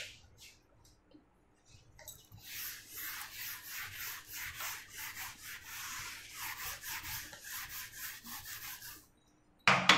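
Whiteboard eraser wiped back and forth across a whiteboard, clearing marker writing: a run of quick rubbing strokes, about three a second, starting about two seconds in and stopping about a second before the end.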